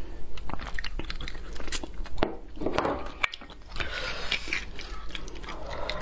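Close-miked eating sounds of beef bone marrow: wet chewing and smacking with many sharp clicks. In the last couple of seconds a metal knife scrapes marrow out of the bone.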